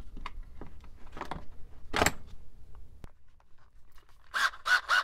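Steel drill bits clicking and rattling in a plastic bit case as one is picked out, with a sharp clack about two seconds in. Near the end, three quick bursts of a Black+Decker drill's motor.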